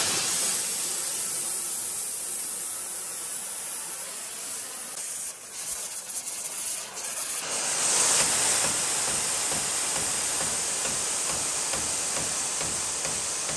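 Oxy-fuel cutting torch flame hissing steadily as it heats the end of a steel bar held in a vise to a glow. The hiss drops and wavers from about five to seven seconds in, then comes back louder.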